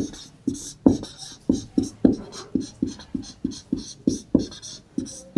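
Marker pen writing on a whiteboard: a run of short, irregular squeaks and taps, about three or four a second, as the strokes of the letters are drawn.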